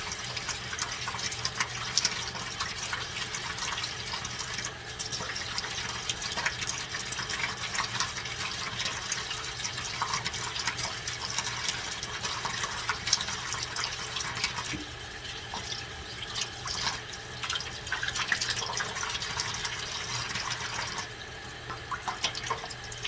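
Cold tap water running steadily into a sink, with small splashes and scrubbing as an eyeglass lens is wet-sanded by hand with 2000-grit sandpaper under the stream.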